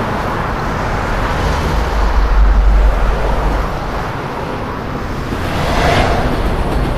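Road traffic noise, an even rushing sound over a deep low rumble that swells about two seconds in and again near the end.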